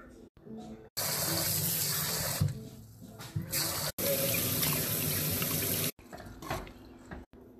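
Kitchen tap water running, in two stretches of about two seconds each that start and stop abruptly.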